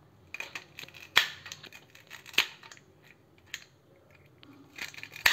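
Handheld plastic vegetable cutter slicing ivy gourds into rounds: a few crisp clicks and crunchy snips as the blade cuts through, the two sharpest about one and two and a half seconds in.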